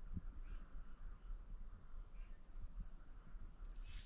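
Outdoor woodland sound: a few faint, short bird chirps over low, irregular thumps.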